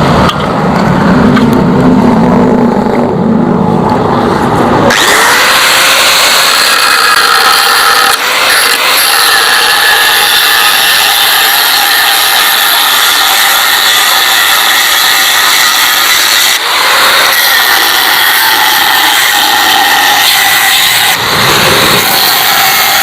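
An angle grinder spins up about five seconds in and cuts into the metal shell of a Yamaha RX-King muffler, running with a steady high-pitched whine that dips briefly a few times as the cut goes on. The first few seconds hold a lower, rougher machine noise.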